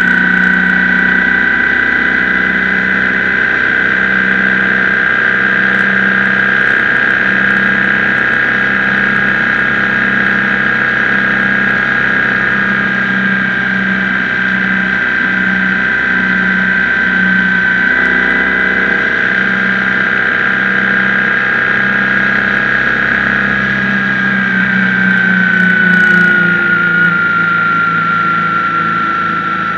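BMW R1150GS motorcycle's flat-twin (boxer) engine running loudly at a steady cruising speed, with a strong steady high whine over the engine note. The pitch falls slightly about 24 seconds in as the bike eases off.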